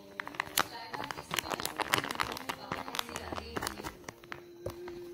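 Soft plastic wrapper of a Pampers baby wipes pack crinkling and crackling as it is handled, and its flip-top lid is pulled open.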